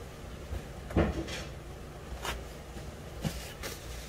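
A single sharp knock about a second in, followed by a couple of lighter clicks, over a low steady background hum.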